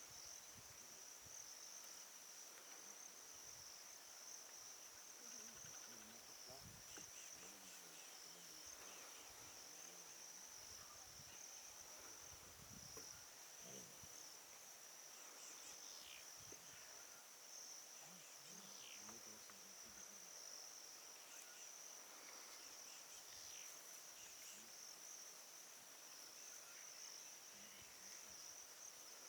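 Faint, steady high-pitched chorus of insects such as crickets, running unbroken throughout.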